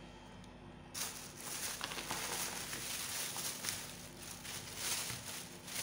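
Rustling and handling noise close to the microphone, starting about a second in, with scattered small clicks over a steady low hum.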